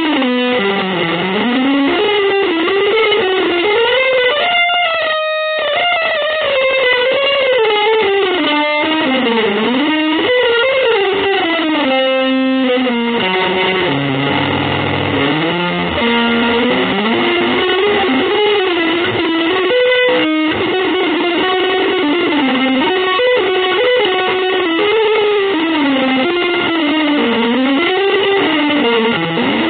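Electric guitar playing a long, winding single-note melodic line that rises and falls almost without pause, breaking off briefly a few times.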